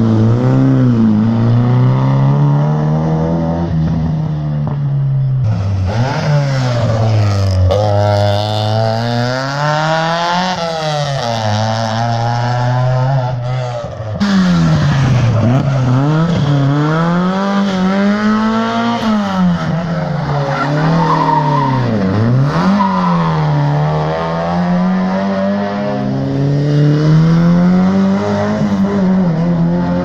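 Rally car engines revving hard as several cars in succession slide sideways through a corner. The pitch climbs and drops again and again as the drivers change gear and lift off, with the cars switching abruptly about 5 and 14 seconds in. Tyres squeal under the slides.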